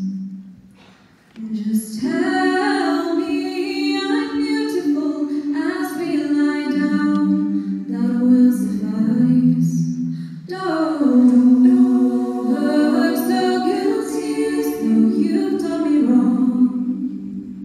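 Collegiate a cappella group singing live, a female lead over blended backing voices with no instruments. The voices fall away briefly near the start and come back in, with another short break about two-thirds through.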